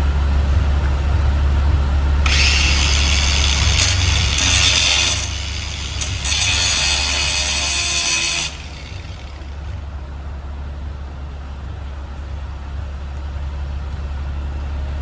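Ryobi angle grinder with a Diablo Steel Demon grinding disc, cutting into a steel padlock shackle. There are two harsh grinding bursts of about three seconds each over a steady low hum. The grinding stops about halfway through.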